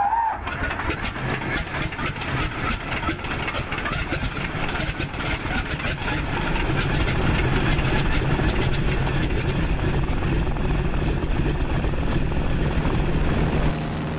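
Boeing Stearman PT-17's radial engine starting: it fires unevenly at first, then catches and runs steadily, growing louder from about six seconds in.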